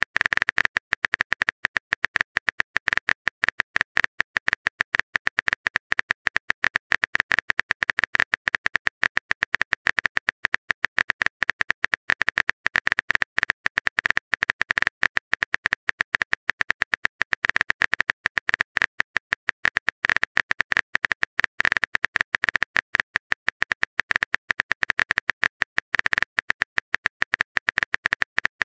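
Rapid, uneven keyboard-typing clicks from a texting sound effect, many a second, without pause.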